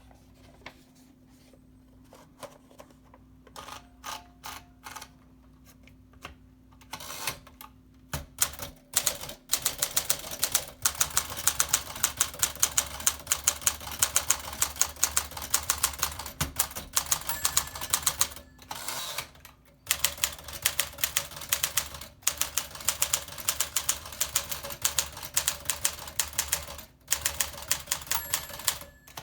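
A 1956 Smith Corona Clipper manual typewriter being typed on. A few separate keystrokes come first, then rapid continuous typing with its clacking type bars, broken by two short pauses.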